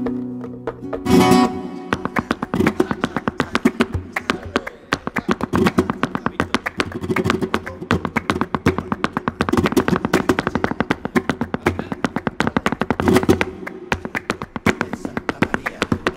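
Flamenco guitar music: a loud strum about a second in, then fast, rhythmic strumming that keeps going.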